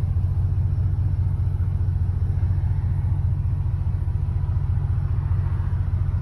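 Steady, deep rumble of a Ford truck's engine and exhaust while driving at cruising speed, heard from inside the cab.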